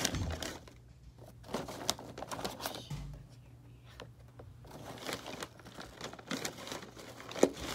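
Irregular rustling and crinkling close to the microphone, with a sharp tap near the end.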